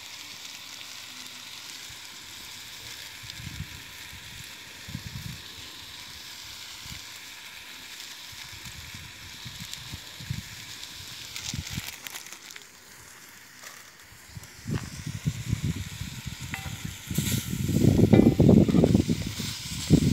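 Stew sizzling and simmering in a cast iron bush baby pot over hot coals, a steady hiss with a few light knocks. In the last five seconds a spoon stirs and scrapes through the pot, louder and irregular.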